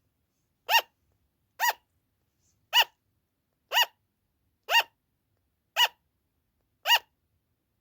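Sugar glider barking its loud, repeated 'an-an' call: seven short, sharp yaps about one a second, evenly spaced. This call often goes on for a long time without stopping.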